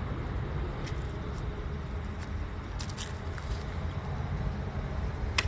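Steady low rumble of distant road traffic, with a few faint clicks and a sharper click near the end.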